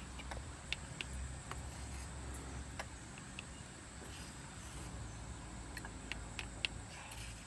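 Toy excavator scooping sand: faint, scattered clicks and light scrapes of small wooden and plastic toy parts in sand, over a low steady rumble.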